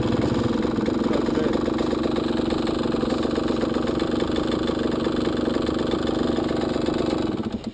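Yamaha 125 cc trail motorcycle engine idling steadily while the bike stands still, heard close up from the handlebars. The sound cuts off abruptly near the end.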